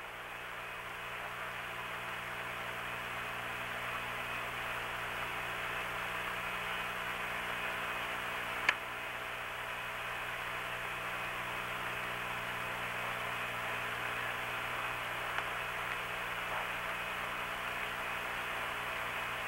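Steady hiss of an open radio voice channel on the Apollo 8 air-to-ground link, with a low steady hum underneath and a single sharp click about nine seconds in.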